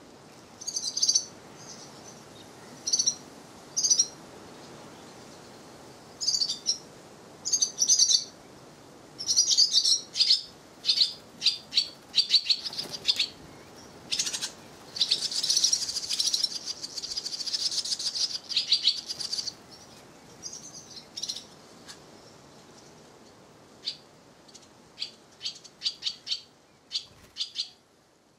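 Barn swallow nestlings in a mud nest calling with short, high chirps in scattered bursts, which thicken into a dense run of begging calls for a few seconds in the middle as a parent flies in.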